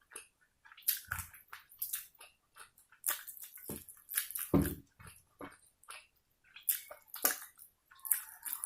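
Close-miked eating: chewing and wet mouth clicks coming in irregular short strokes, with a few fuller, louder gulps or bites, the loudest about four and a half seconds in.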